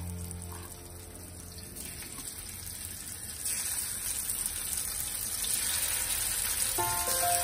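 Spiced tuna pieces sizzling as they fry in hot coconut oil in a cast-iron skillet, a steady hiss that grows louder about three and a half seconds in as more pieces go into the pan.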